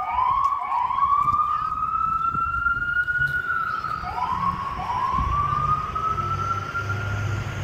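Fire department emergency vehicle siren wailing. Its pitch sweeps quickly up, then holds high and climbs slowly, restarting every second or few seconds.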